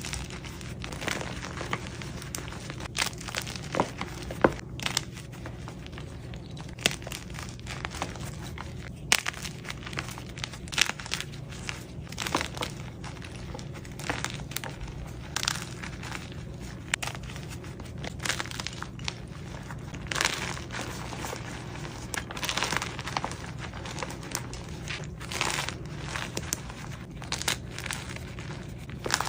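Blocks of gym chalk being squeezed and crumbled by hand: a dense run of irregular crunches and crackles.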